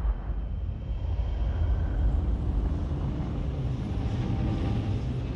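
A huge spaceship's engines passing by in film sound design: a deep, steady rumble that swells in the first couple of seconds and then holds, with a faint hum on top.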